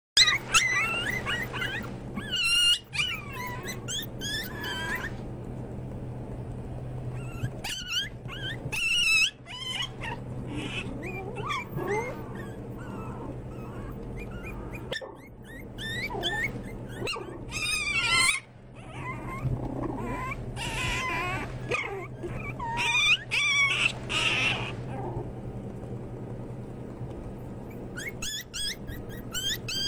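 A litter of about ten American Eskimo puppies whining and squealing, many high, wavering cries overlapping in bouts, over a steady low hum.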